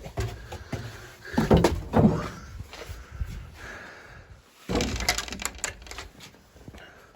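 Knocks, bumps and clatter in an enclosed room, loudest in two bursts about a second and a half in and again about five seconds in.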